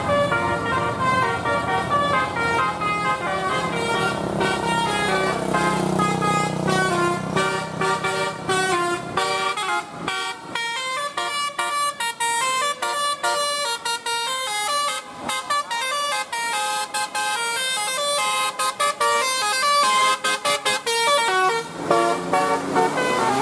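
Mechiho bus's telolet horn, a set of multi-tone air horns, playing quick stepping tunes of tooting notes phrase after phrase, with short breaks between phrases. A low rumble runs under the first part.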